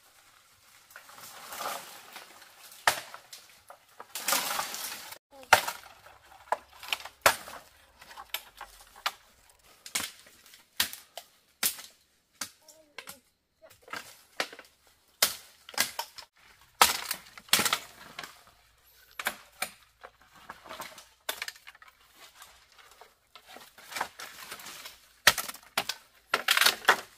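Dry sticks and branches snapping as firewood is gathered: a long series of irregular sharp cracks, with rustling of brush and dry leaves between them.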